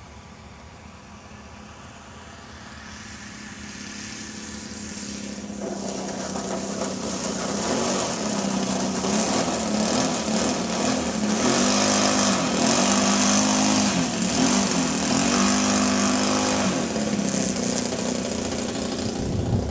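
Saito 100 four-stroke model-aircraft engine running at low throttle as the RC plane lands and rolls on grass. It grows louder as the plane comes closer, and its note wavers up and down.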